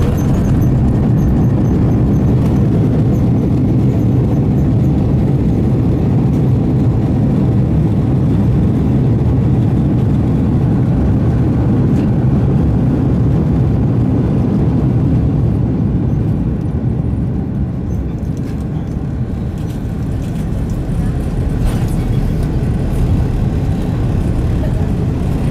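Airbus A330-200 turbofan engines in reverse thrust during the landing rollout, heard from inside the cabin: a loud, steady, deep rumble that eases off a little after about fifteen seconds.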